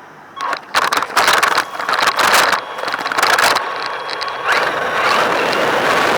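RC car driving in a run of short loud bursts of rushing noise with a faint motor whine, settling into a steady rush about four and a half seconds in.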